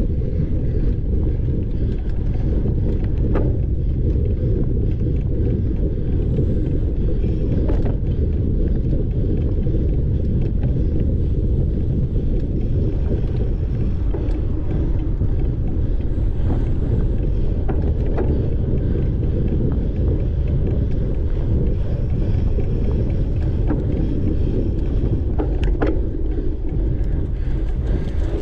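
Wind buffeting the microphone of a camera riding along on a cyclocross bike at speed, a steady low rushing mixed with tyre rumble on a dirt track. A few sharp knocks from bumps jolting the bike break through now and then.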